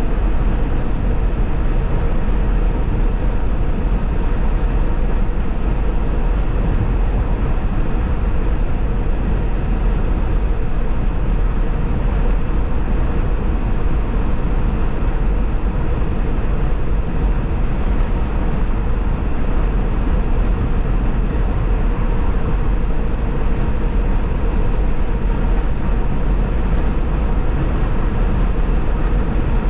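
Steady road noise of a vehicle cruising at freeway speed: a constant low rumble with tyre hiss above it, unbroken throughout.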